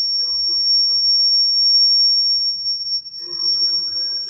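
Public-address microphone feedback: a loud, steady, high-pitched squeal held on one pitch for several seconds.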